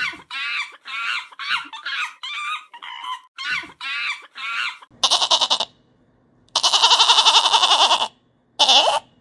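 Animal calls from two different animals in turn: about ten short, quick calls in the first half, then three longer quavering calls with a fast tremble, the middle one the longest.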